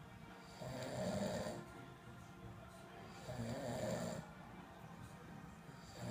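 A man snoring in his sleep: two loud snores about a second long, one about every two and a half to three seconds, with quieter breathing between them.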